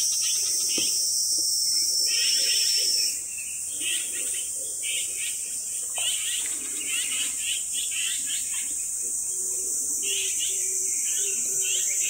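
Insects shrilling in the undergrowth: a continuous high drone, overlaid by groups of quick chirps that repeat every second or two. A low note repeating in short, even pulses joins about three-quarters of the way through.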